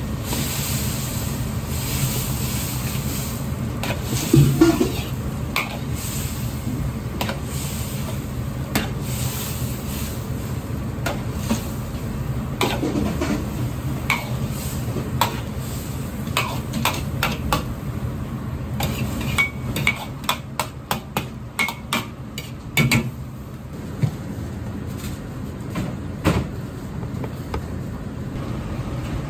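Diced eggplant cooking in a carbon-steel wok over a gas burner, with a steady rushing noise under it and a metal ladle clattering and scraping against the wok. A fast run of taps comes around twenty seconds in, and single louder knocks come here and there.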